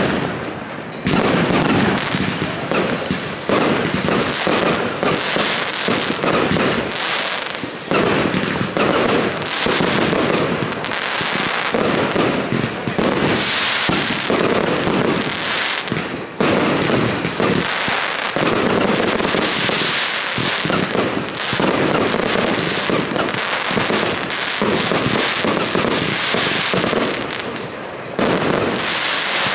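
A fireworks display going off: aerial shells launching and bursting in quick, near-continuous succession, with only brief lulls.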